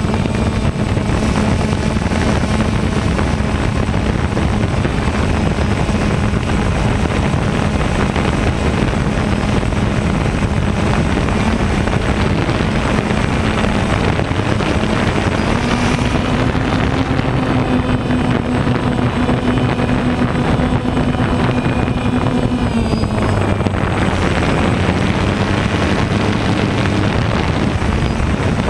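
DJI Phantom 1 quadcopter's electric motors and propellers buzzing steadily in flight, heard close up from the camera slung beneath it. The pitch steps up a little partway through and eases back down later as the motors speed up and slow again.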